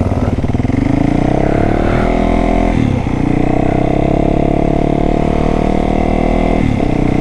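Single-cylinder four-stroke dirt bike engine accelerating under a rider, its pitch climbing and dropping sharply twice, near three seconds and again near the end, as it is shifted up through the gears.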